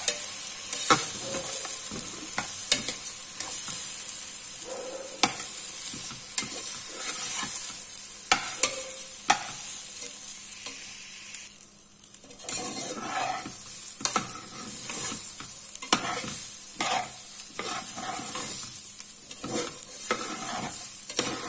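Metal spoon stirring and scraping rice and vegetables in an aluminium pressure cooker, with sharp irregular clicks as it knocks the pot, over a steady sizzle of frying in ghee. The washed rice is being fried until its water dries off.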